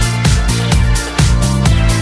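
Background electronic dance music with a steady fast beat and a bass line.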